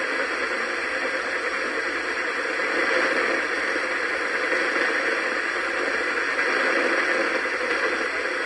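Steady hiss of radio static.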